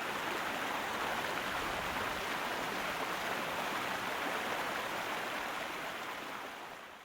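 Steady rushing hiss of a fire hose spraying water, a sound effect for putting out a fire. It fades away near the end.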